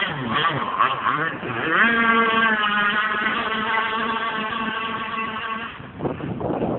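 Small two-stroke petrol engine of an RC powerboat running under throttle. It wavers in pitch, climbs sharply about two seconds in, holds a steady high note, then falls away near the end.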